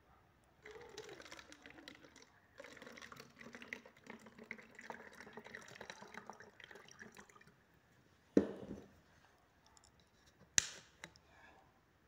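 Water poured from a glass vessel through a plastic funnel into a plastic bottle, splashing and gurgling for about seven seconds with a brief break. A knock follows about eight seconds in, then a sharp click.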